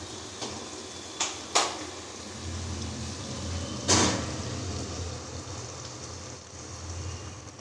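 A few short, sharp knocks and clatters of kitchen utensils, the loudest about four seconds in, over a steady low hum.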